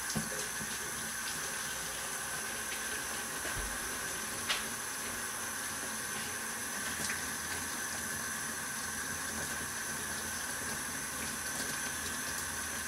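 Water running steadily from a utility-sink faucet, filling a reused plastic 2-liter bottle, with one brief knock about four and a half seconds in.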